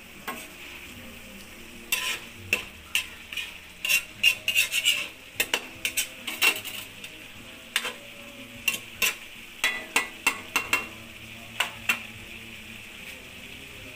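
A cooking utensil stirring chicken afritada in a wok, knocking and scraping irregularly against the pan from about two seconds in, over a steady sizzle of the simmering sauce.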